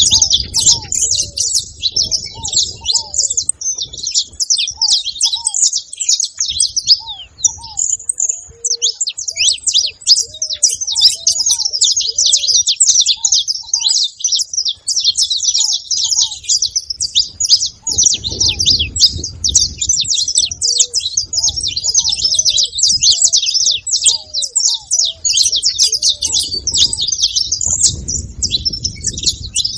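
Several saffron finches chirping and singing at once, a dense, unbroken chatter of quick high notes. Softer, lower arched notes repeat beneath it.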